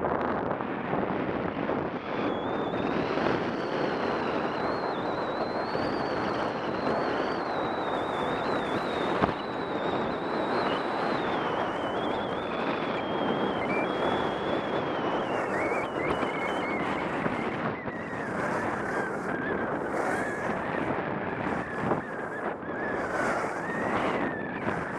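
Wind rushing over the microphone of a camera carried while skiing down a groomed run, mixed with the hiss of skis sliding and carving on packed snow. A thin, wavering whistle rides on top and slowly falls in pitch.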